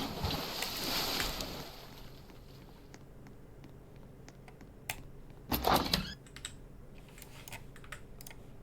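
Scattered sharp clicks like keys or buttons being pressed, after a short hiss at the start, with one louder, longer knock about five and a half seconds in.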